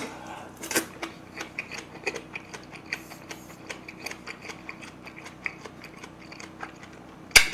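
Close-miked chewing of a mouthful of marinated-crab bibimbap: a string of small, irregular wet mouth clicks, a few a second, with one sharp, much louder click near the end.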